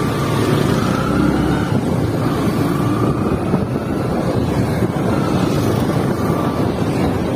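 Wind rushing over the microphone with a low, steady rumble of a vehicle travelling along a road, and a faint high whine that comes and goes.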